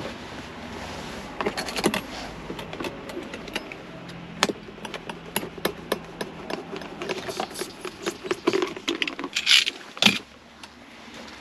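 Pliers and small metal fittings clicking and rattling as they are handled and worked by hand, with a short hissing burst about 9.5 s in and a sharp click just after it.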